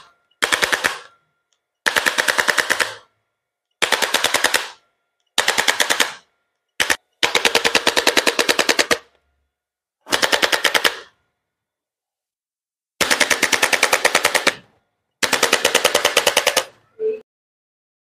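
Handheld electric chiropractic adjusting instrument firing rapid trains of clicking thrusts against the upper back, in about nine bursts of around a second each with short pauses between. A brief low tone sounds near the end.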